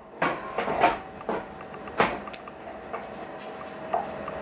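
Light clicks and taps of eggshell halves against each other and a small bowl as egg whites are separated from the yolks, the sharpest about two seconds in, over a faint steady hum.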